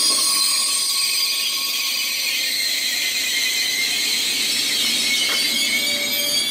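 Bombardier AGC regional multiple unit moving slowly along a station platform, its wheels and brakes giving a high-pitched squeal made of several ringing tones over a low rumble.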